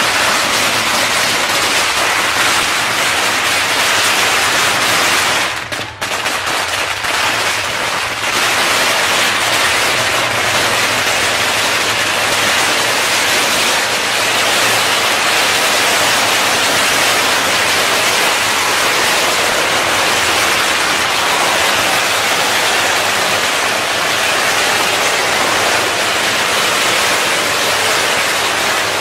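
Long strings of red Vietnamese Tết firecrackers going off in a rapid, continuous crackle of bangs, with a brief lull about six seconds in.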